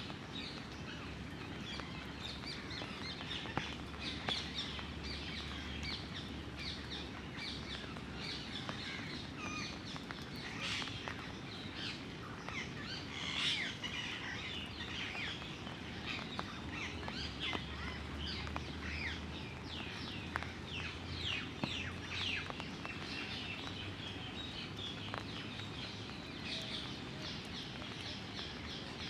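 Small birds chirping continually, many quick high chirps overlapping.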